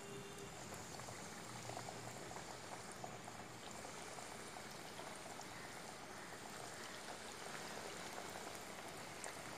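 Oat-crusted chicken nuggets deep-frying in hot oil in a steel kadhai: a faint, steady sizzle and bubbling, with fine crackles.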